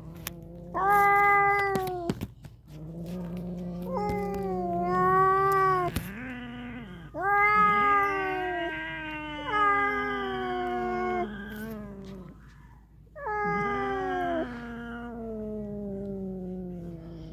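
Two cats squaring off, yowling: a series of long, wavering caterwauls, some held for several seconds, over a low growl in the first few seconds. This is the threat yowling of a territorial standoff with an intruding cat, just short of a fight.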